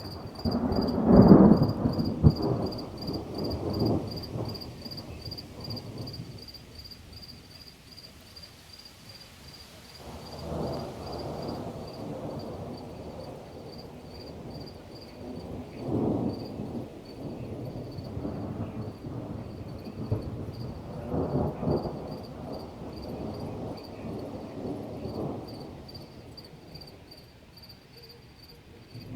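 Thunder rumbling and rolling in several waves, loudest about a second in and swelling again every few seconds. Insects chirp in a fast, steady high pulse throughout.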